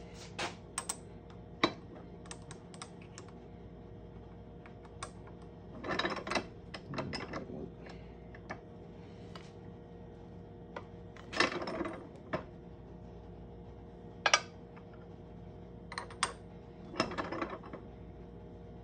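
Hand-lever arbor press and its steel dies clinking and clicking as a copper coin ring is pressed and handled under the ram. The sounds come as scattered sharp clicks and several short clattering clusters.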